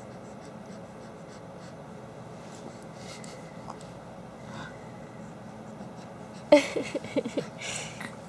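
Faint soft rustling for most of the stretch. About six and a half seconds in comes a sudden, louder run of quick, short voice sounds lasting about a second.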